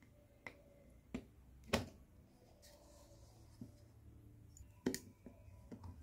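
A series of sharp plastic clicks and snaps as a thin metal blade pries the plastic diffuser dome off an LED bulb's housing. The loudest snap comes a little under two seconds in, another strong one near the end.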